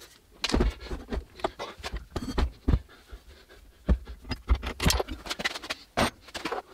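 Irregular knocks and clunks of a steel belt grinder and its electric motor being lifted, turned over and set down on a workbench, with some scraping of metal parts.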